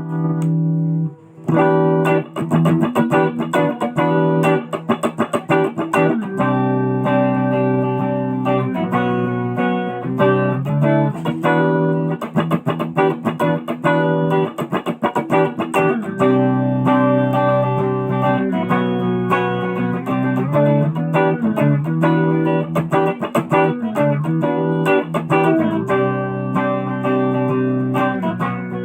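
Busker's Les Paul-style electric guitar being played through an amplifier: runs of single notes mixed with held chords, after a short break about a second in.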